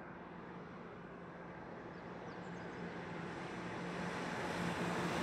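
Tuned Suzuki Alto Turbo RS's 660cc turbocharged three-cylinder engine held flat out near its top speed of about 177 km/h, with tyre and wind noise, growing steadily louder as the car approaches.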